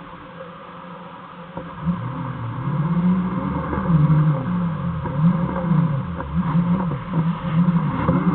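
Segway's electric drive motors and gearbox whining, the pitch gliding up and down again and again as it speeds up and slows. It starts a couple of seconds in.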